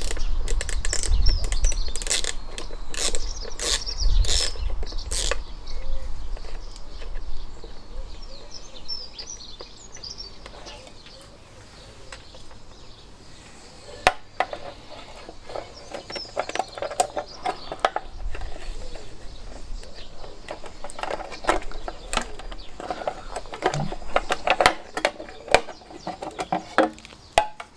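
Socket ratchet clicking and metal tools clattering while a small nut is undone, with birds chirping in the background.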